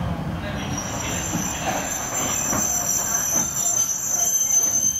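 Izuhakone Railway 5000 series electric train heard from inside the passenger car, braking into a station: running noise under a steady high-pitched squeal from the wheels and brakes that sets in about half a second in.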